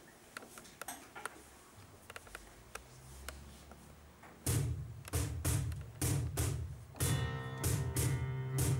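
A few soft taps, then about four and a half seconds in a song starts: a cajón strikes a steady beat of about two hits a second over a low bass, and sustained chords join about seven seconds in.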